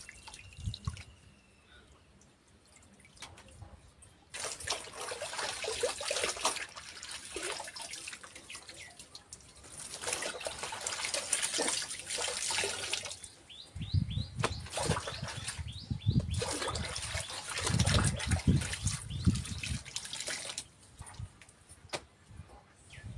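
Clothes being washed by hand in a plastic basin: wet cloth sloshed, wrung and lifted from the water, with water splashing and dripping back into the tub. It is fairly quiet at first and the splashing starts about four seconds in, with louder, deeper stretches in the second half.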